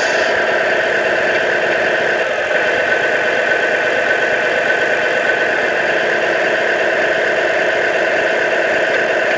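Steady engine-like drone of a 1:14-scale radio-controlled Scania 113 truck running along the track.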